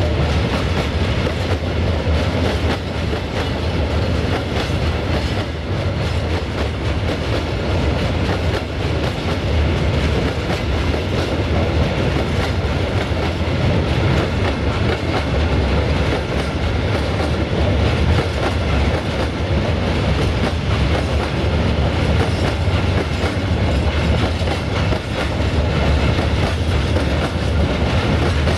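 Freight train of hopper wagons rolling past close by: a steady low rumble of steel wheels on the rails, with the clack of wheels over the rail joints.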